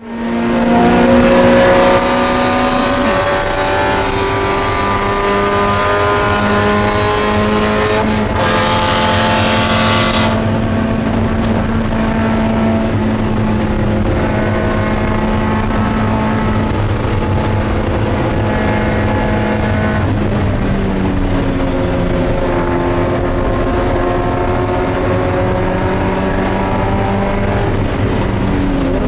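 Spec Miata (Mazda MX-5) four-cylinder engine running hard at racing speed, heard inside the cabin, its pitch climbing slowly and dropping back about twenty seconds in before climbing again. A hiss lasts about two seconds, starting about eight seconds in.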